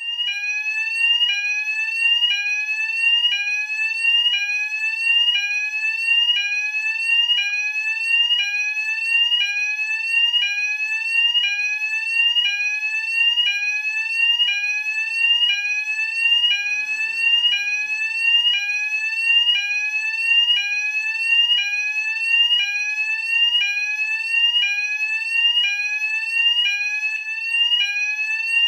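UK fire alarm sounder base sounding its sweep tone: an electronic tone rising in pitch, repeated steadily about three times every two seconds, with no pause.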